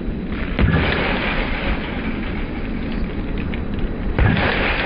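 Wind buffeting the camera microphone: a steady low rumble with a hiss above it, with two louder knocks or gusts, about half a second in and again near the end.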